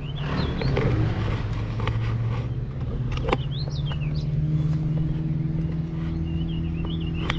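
Steady low motor hum, its pitch stepping up slightly about halfway through, with short high chirps over it and a single sharp click a little after three seconds.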